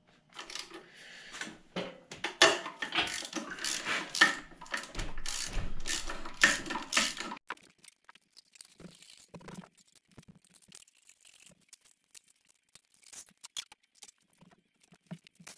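A cordless DeWalt power tool with a socket extension runs in bursts for about seven seconds, rattling as it spins out the intake manifold bolts on a Jeep 4.0 L inline-six. After that come only sparse, faint clicks of hand tools on the bolts.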